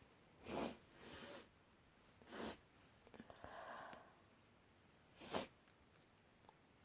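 A person sneezing three times, short sharp sneezes about two to three seconds apart, with softer breathy sounds after the first sneeze and between the second and third.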